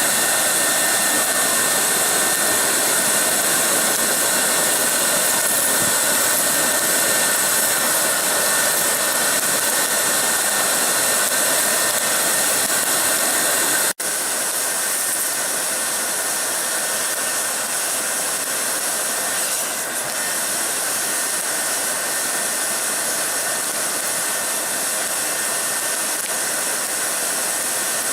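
Blow dryer running steadily, forcing air into the coals of a fire-pit forge to bring them up to heat: a continuous rush of air with a faint high whine. It breaks off for an instant about halfway and carries on a little quieter.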